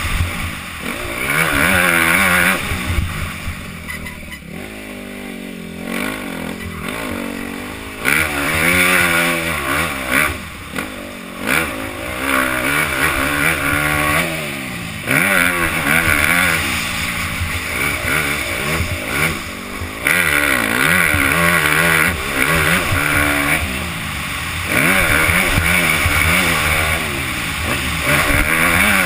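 Motocross bike engine revving up and falling off again and again as the rider works the throttle through the gears. There are sudden drops when the throttle shuts and a softer, lower-revving stretch about four to eight seconds in.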